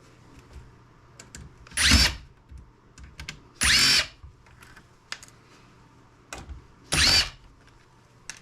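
Cordless electric screwdriver run in three short bursts of a whining motor, unscrewing parts of a laptop, with light clicks and taps of handling in between.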